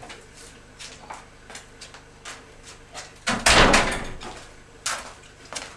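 A door being shut: a loud clattering bang about three seconds in that rattles on for about a second, amid lighter knocks and shuffling steps before and after.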